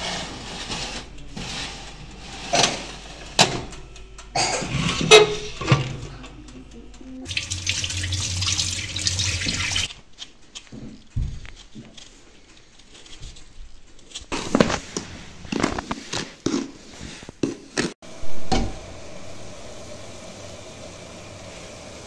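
Kitchen tap running into a steel sink for about three seconds, with scattered knocks and clatters of handling dishes and utensils before and after it.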